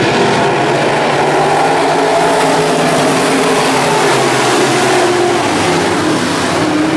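A field of IMCA modified race cars' V8 engines running together on the dirt oval, a loud, steady din.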